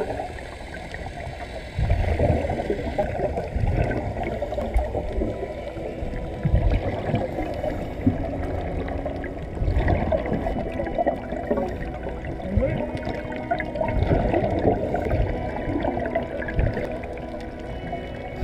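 Muffled underwater gurgling and bubbling, air escaping from a Sea Trek surface-fed walking helmet, with irregular low thumps scattered through.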